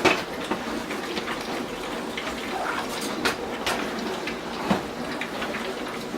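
Hot cooking liquid crackling and spattering steadily in a pan on the stove, with a few sharp clicks scattered through.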